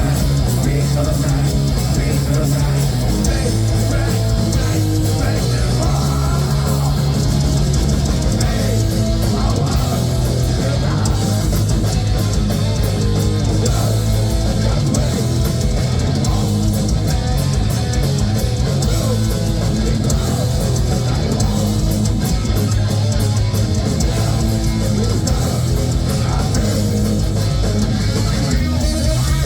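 Heavy metal band playing live, with electric guitars, bass and drum kit at a loud, steady level.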